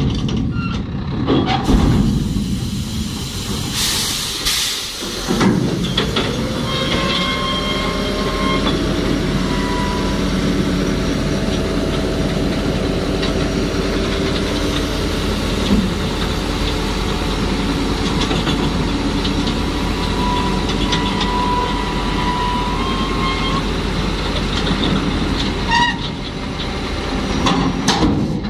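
Scania tipper truck's diesel engine running steadily, with a burst of air hiss about four seconds in. After that a whine rises and then holds steady.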